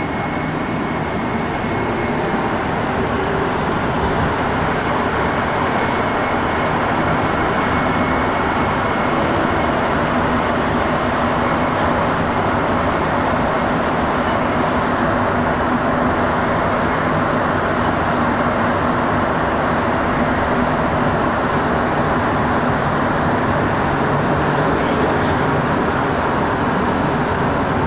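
Rubber-tyred Montreal metro train heard from inside the car, pulling out of the station into the tunnel: a steady rumble of tyres and traction motors that grows louder over the first several seconds as it picks up speed, then holds.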